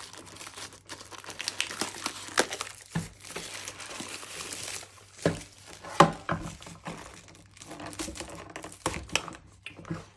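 Plastic packaging crinkling and rustling as a camera is unwrapped, with sharp clicks and knocks from handling.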